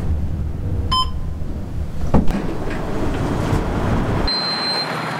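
Parking-garage elevator car travelling with a low hum; a single short chime sounds about a second in and a clunk about two seconds in. The hum cuts off abruptly near the end.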